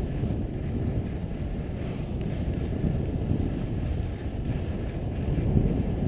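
Wind buffeting the microphone of a skier's camera while gliding down a groomed piste: a steady low rumble.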